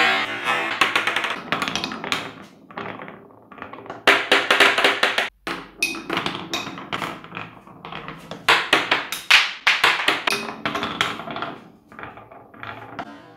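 Big marbles rolling and clattering down a wooden marble-run track: quick runs of taps and knocks as the balls roll along the wooden chutes, drop from piece to piece and strike one another, with a brief break about five seconds in.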